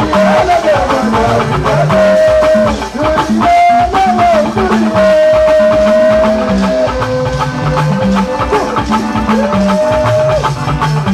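Music: a held melody line that slides between notes, over a moving bass line and steady percussion.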